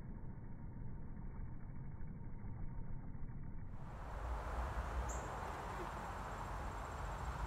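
Steady outdoor ambience of low rumble and hiss. After a cut about four seconds in it opens into a brighter, fuller hiss, with one short high chirp about a second later.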